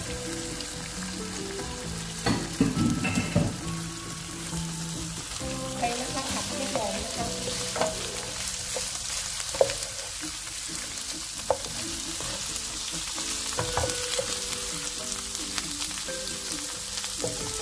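Whole shrimp sizzling in hot oil with a chili-garlic paste as they are stir-fried, with a wooden spatula knocking and scraping against the pan now and then, most busily two to three seconds in.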